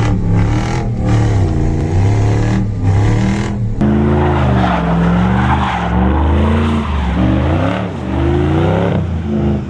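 Dodge Ram 1500 Hemi V8 with exhaust stacks being revved again and again, its pitch rising and falling in repeated swells.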